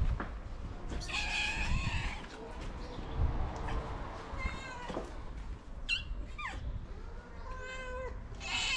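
Cats meowing: about four separate meows, one of them falling in pitch.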